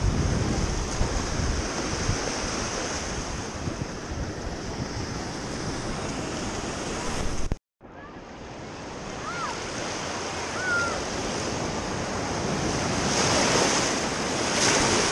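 Shallow ocean surf washing and swirling around the legs, with wind buffeting the microphone. The sound cuts out completely for an instant about halfway through. A wave then surges in, growing louder toward the end.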